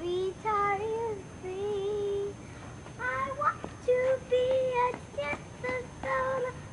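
A young girl singing a song unaccompanied while dancing: held notes at first, then quicker short notes.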